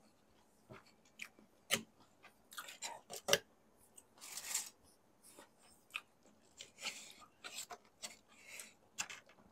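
Close-miked eating sounds: chewing with wet mouth clicks, and hands handling food and the cardboard takeout boxes, giving scattered sharp clicks and short rubbing rustles. The longest rustle comes about halfway through.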